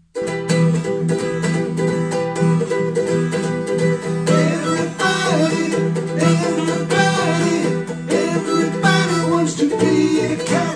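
Ukulele strumming and electric bass guitar playing a jazzy swing tune together, with a sliding lead melody on top; the music stops abruptly at the end.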